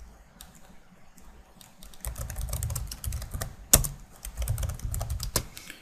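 Typing on a computer keyboard: a short pause, then a quick run of keystrokes with one key struck noticeably harder than the rest partway through.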